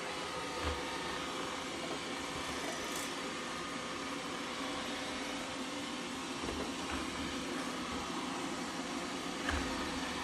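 Robotic vacuum cleaner running, a steady whirring hum with a faint whine, with a few soft low thumps along the way.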